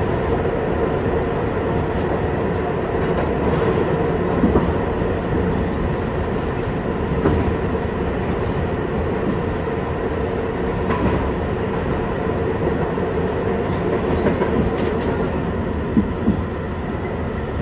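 A 1983–84 Kawasaki R-62 subway car running through a tunnel, heard from inside at the front: a steady rumble of wheels on rail with a few sharp clacks.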